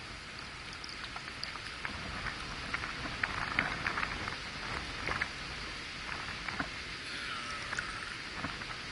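Excess cooking water drained from a camp pot past its tight-fitting lid into a plastic cup, trickling and spattering in uneven drips, heaviest in the middle.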